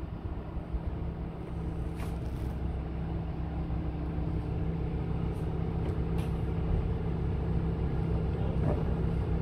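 Steady low machine drone of a running engine or motor, growing slowly louder, with a few faint sharp knocks from work on the wooden hull.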